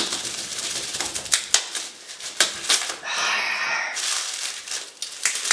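Knife cutting through packing tape on a taped parcel: scattered crackles and clicks, then about three seconds in a longer ripping sound of about a second as tape is pulled away.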